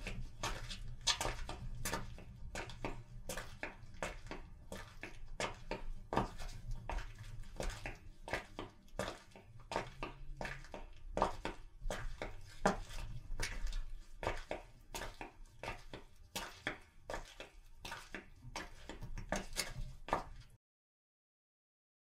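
Footsteps sound effect: a long run of quick, irregular steps, several sharp clicks a second, over a low steady rumble. It cuts off abruptly about twenty seconds in.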